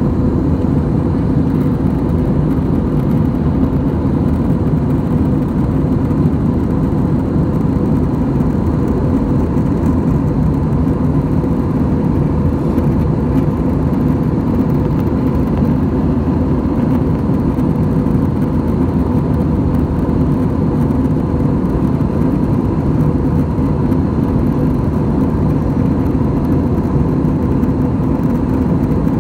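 Steady jet engine and airflow roar inside an airliner's cabin in flight, with faint steady hums running through it.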